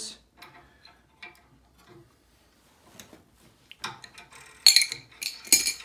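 Metal tools and small metal parts clinking and clicking as the air handler's piston metering-device fitting is worked on: a few faint ticks, then a quick run of sharper clinks about four to five and a half seconds in.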